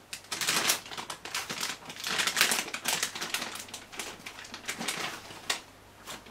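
Plastic candy bag of licorice crinkling and rustling in a dense, irregular crackle as it is pulled open and handled, busiest about two to three seconds in.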